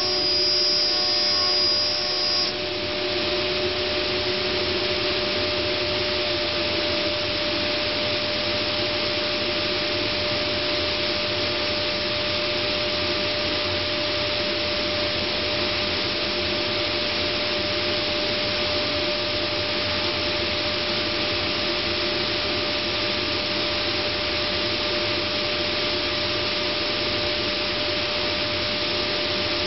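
Multicam 3000 Series CNC router running: a steady rushing noise with a steady hum tone through it. A higher whine heard at the start cuts off about two seconds in.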